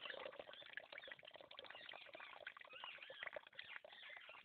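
Rice being washed by hand in a metal cooking pot: grains rubbed and swirled in water, with water sloshing and pouring off, faint overall. Birds chirp steadily behind it.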